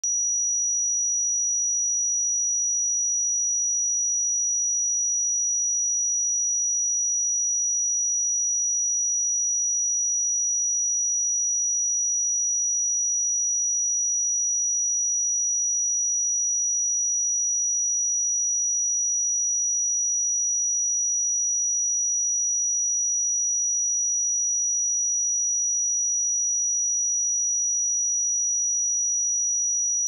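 A single 5823 Hz sine-wave test tone, a steady high-pitched pure tone held at a constant level, used to check speakers or headphones.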